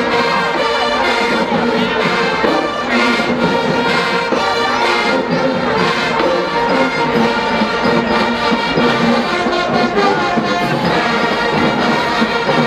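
College marching band playing, its brass section of trombones and trumpets carrying a loud, sustained tune.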